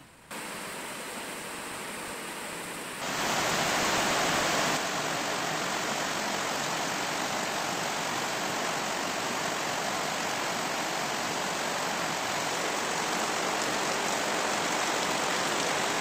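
Heavy rain pouring down, a steady hiss that jumps louder about three seconds in.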